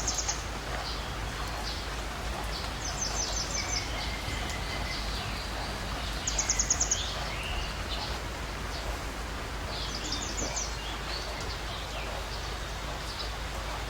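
Birds calling over steady outdoor background noise: one high, rapid trill repeats four times, about every three to four seconds, between scattered short chirps.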